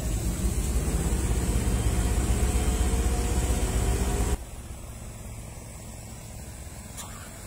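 Heavy road-resurfacing machinery engines running, with a slowly rising engine tone. About four seconds in the sound drops abruptly to a quieter, steady engine hum.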